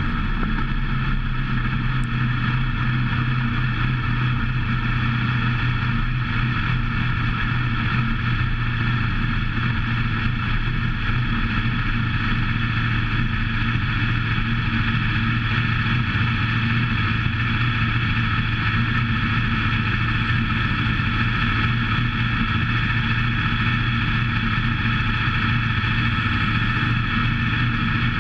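WISSOTA modified dirt-track race car's V8 engine, heard from an in-car camera, running at a steady low speed with no revving.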